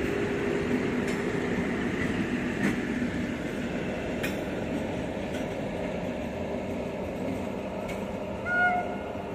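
Diesel multiple unit (DMU) passenger train pulling out, its diesel engine running steadily under the rumble of the coaches, with scattered clicks of wheels over rail joints. A short honk stands out near the end.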